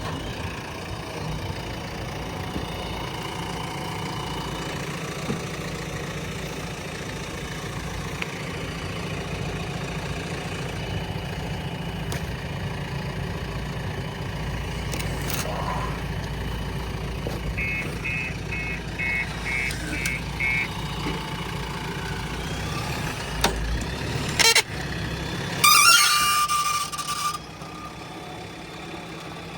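Heavy diesel engine running at a steady idle-like rumble, with a run of about seven short high beeps midway. The rumble stops about 24 s in, followed by a couple of knocks and a loud high-pitched tone lasting about a second and a half.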